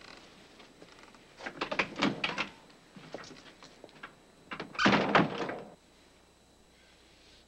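Knocks and thumps: a scatter of them about a second and a half in, then a louder cluster about five seconds in.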